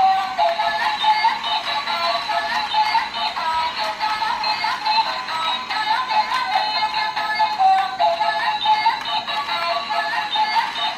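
Tinny electronic tune from the built-in speaker of a Doraemon stair-climbing slide toy: a quick, chirpy melody of short notes with almost no bass.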